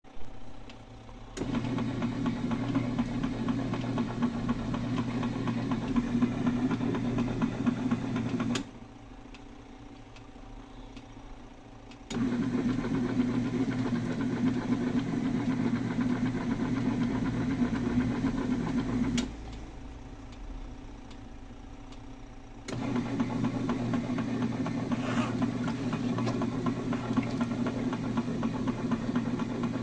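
Praxis Petit mini washing machine running a full load: its motor hums and the wash churns for about seven seconds, stops for three to four seconds, then starts again. This happens three times.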